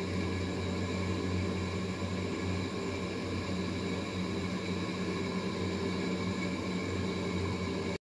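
Steady mechanical hum: a low drone and several held tones over an even rush of air-like noise, unchanging, cutting off abruptly near the end.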